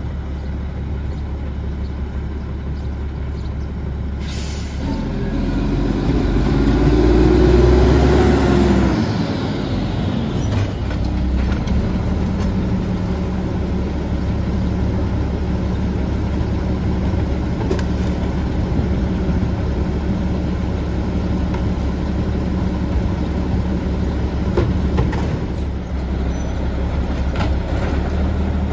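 Mack LE garbage truck's diesel engine running at idle, revving up and back down about five to nine seconds in, then settling into a steady idle again. A short hiss of air comes just before the rev, with a few faint knocks later on.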